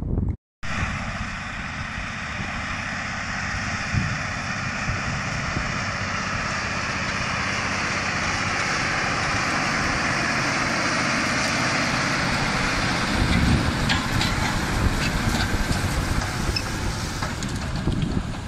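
John Deere 9620RX quad-track tractor's diesel engine running steadily under load as it pulls a Horsch Joker 12 RT disc cultivator through the soil, with a dense steady hiss over the engine. It grows louder about two-thirds through as the tractor passes close.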